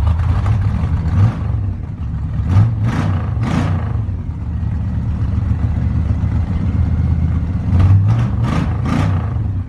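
1972 Chevy Nova's engine, fitted with dual Rochester Quadrajet carburetors, a timing gear drive and side pipes, running loud and freshly started, with several brief surges in level that sound like throttle blips.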